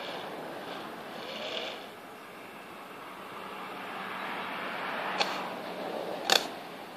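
Sharp pops from the guns of a 1/200-scale Bismarck model warship firing: one pop about five seconds in and a louder double pop about a second later, over a steady hiss.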